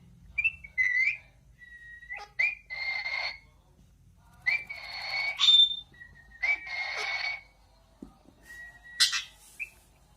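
Pet parrot calling: short whistled notes broken by three longer harsh, raspy calls and sharp clicks, then one loud squawk about nine seconds in.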